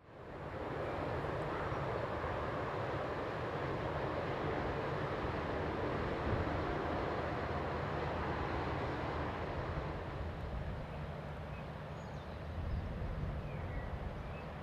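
Low, steady drone of an inland cargo barge's engine heard across the river, mixed with an outdoor rush of air. It fades in at the start and eases a little in the last few seconds.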